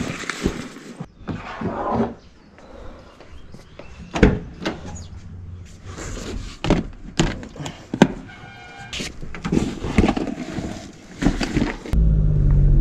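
A run of handling clicks and thunks as gear is packed and a car door is opened and shut. About a second before the end, a small hatchback's engine starts suddenly and settles into a steady idle.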